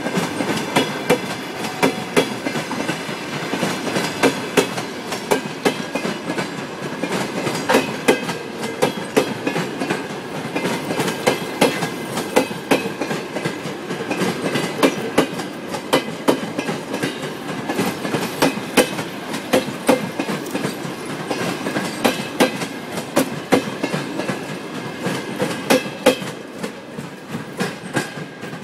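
Ukrainian Railways passenger carriages rolling past, their wheels clicking and clattering over rail joints and points in rapid, uneven succession. The clatter fades near the end as the last carriage moves away.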